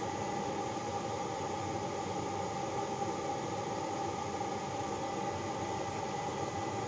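Gas burners under the Babbitt melting pots running with a steady, even noise.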